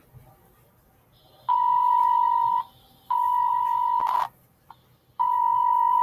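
Emergency Alert System alert tones for a tornado warning: three long electronic beeps at one steady pitch, each about a second long, with short pauses between them.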